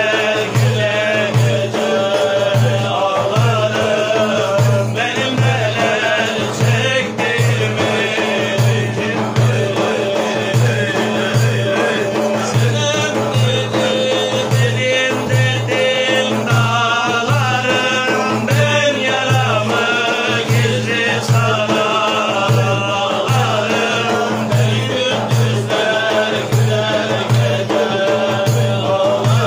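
Men singing a Turkish Sufi hymn (ilahi): a lead voice carries the melody over a group dhikr, a low chant repeated in a steady rhythm a little more than once a second.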